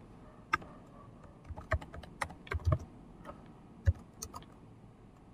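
Typing on a computer keyboard: a dozen or so separate keystrokes at an uneven pace.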